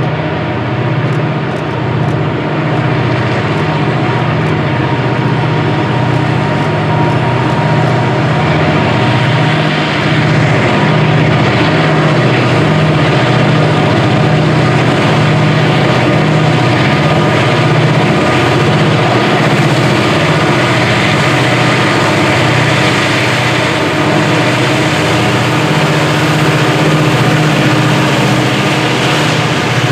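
Four EMD SD40-series diesel-electric locomotives working hard upgrade, their diesels running loud and steady under heavy load, growing a little louder about a third of the way in.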